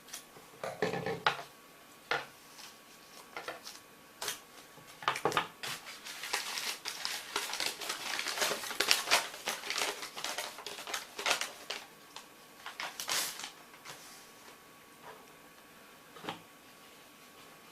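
Taped knife packaging being cut and torn open with a knife: scattered clicks, knocks and scrapes, with a denser stretch of tearing and rustling tape and wrapping in the middle.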